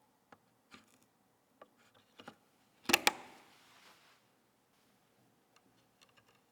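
Light clicks and taps of PC parts being handled during a build, with one sharp double knock about three seconds in that trails off over about a second.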